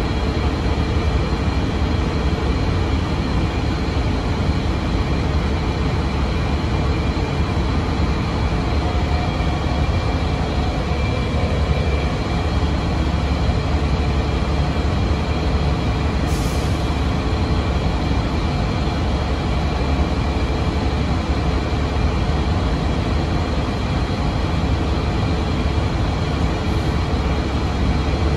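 Cabin noise aboard a 2006 NABI 40LFW transit bus under way: its Cummins ISM diesel engine and Allison transmission running steadily with a deep low rumble and faint steady whining tones over road noise.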